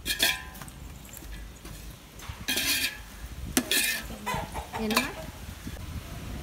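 A metal ladle stirring thick chicken masala in an aluminium pot, in a few scraping strokes against the pot's sides.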